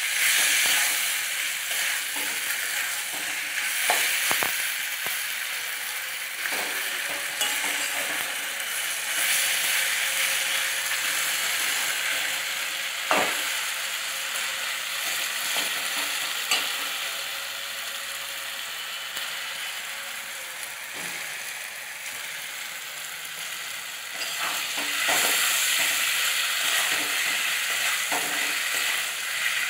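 Chicken and onions sizzling as they fry in a kadai, with a metal spatula scraping and knocking against the pan now and then. The sizzle grows louder near the end.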